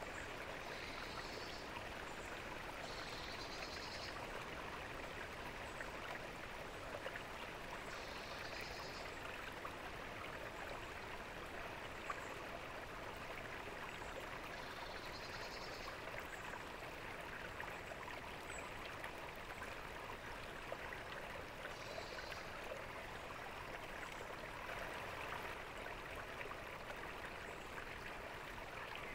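Water fountain splashing and trickling steadily into its basin. Short faint high chirps come in every few seconds.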